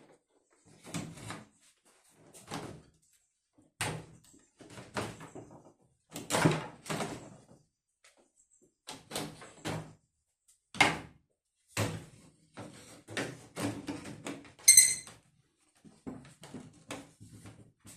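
A run of irregular knocks and clatters, one or two a second, with a short high squeak near the end.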